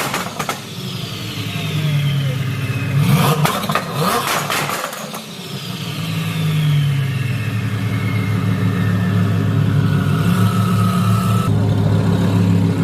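Twin-turbo Lamborghini Huracán Evo V10 revved in bursts, a high turbo whistle falling away as the revs drop, with a cluster of sharp crackles about three seconds in; from about seven seconds in it runs steadily. Heard as really loud.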